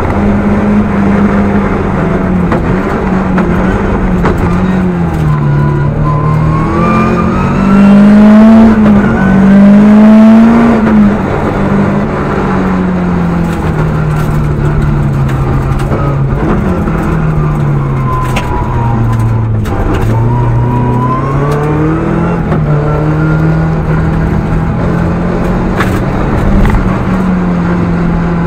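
Rally car's engine at full stage pace, heard from inside the cabin, revs climbing and dropping through gear changes and braking; the revs peak about eight to eleven seconds in and dip lowest around nineteen seconds. A few sharp knocks cut through here and there.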